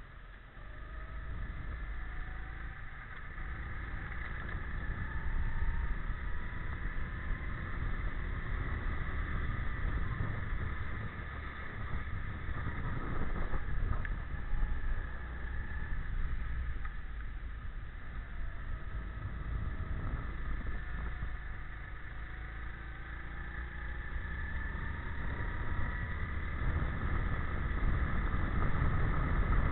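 Go-kart engine heard from a camera mounted on the kart, its pitch rising and falling again and again as the kart speeds up and slows through the corners, over a heavy low rumble of wind and vibration.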